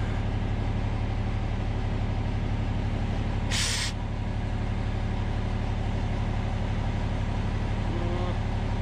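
An engine idling steadily, with a short burst of hiss about three and a half seconds in.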